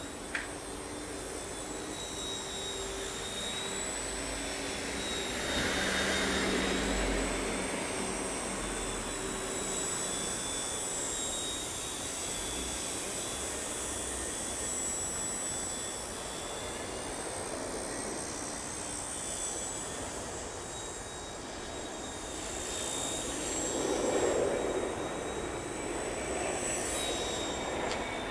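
WLtoys V911S toy RC helicopter's small electric motors and rotors giving a steady high-pitched whine that shifts slightly in pitch as it flies. A passing car's rush swells up about six seconds in, and another broad rushing swell rises near the end.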